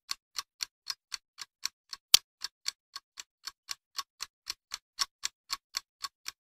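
Clock ticking sound effect: quick, even ticks about four a second, with one louder tick about two seconds in.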